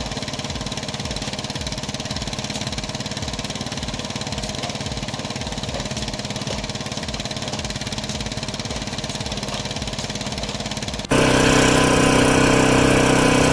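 An engine-driven machine running steadily with a fast, even pulse. About eleven seconds in it changes abruptly to a louder, steady sound with several held tones.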